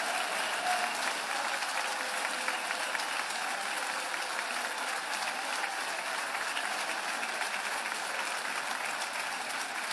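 Large audience applauding steadily, a dense, even wash of many hands clapping.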